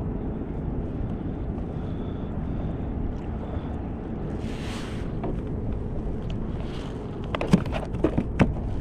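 Steady low wind noise on the microphone over water around a kayak, with a short hiss about halfway through. Near the end come a few sharp clicks and knocks.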